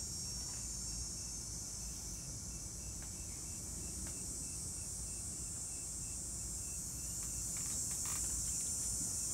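Outdoor insect chorus: a steady high-pitched hiss, with a faint separate chirp repeating about three times a second until near the end, over a low background rumble. A few faint rustles come near the end.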